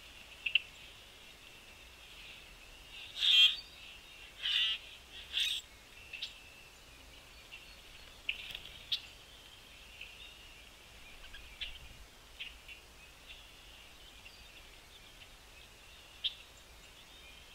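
Small birds calling, with short scattered chirps over a steady high background chorus. Three louder, harsh calls come in quick succession about three to six seconds in.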